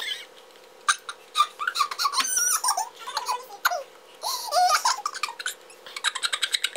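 A boy laughing uncontrollably in high-pitched squeals and giggles, ending in a quick run of short bursts of laughter.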